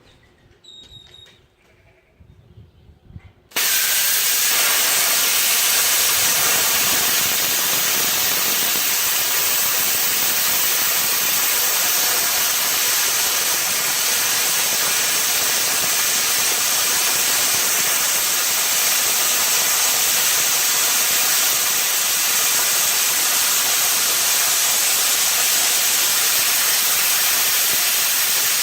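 Hypertherm Powermax 45 plasma cutter cutting through half-inch steel grader blade. About three and a half seconds in, the arc strikes with a sudden loud hiss, which then holds steady without a break.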